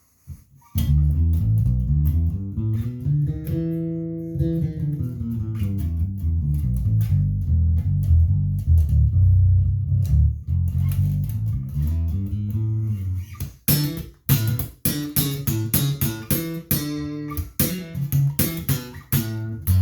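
Harley Benton JJ-55 OP electric bass with nickel strings, played solo through both pickups blended evenly, with the treble rolled fully off: a run of deep, dark bass notes. In the last few seconds the notes come in quicker, sharper-attacked bursts.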